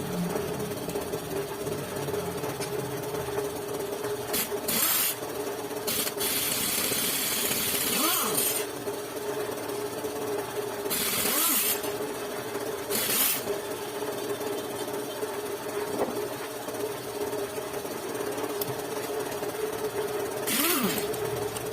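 A machine running steadily, with short bursts of hissing every few seconds.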